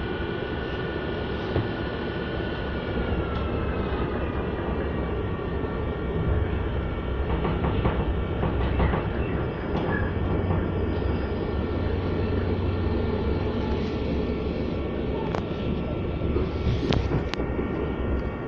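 Running noise of a passenger train heard from inside the carriage: a steady rumble with a whining tone that falls slightly a few seconds in, and a few sharp clicks near the end.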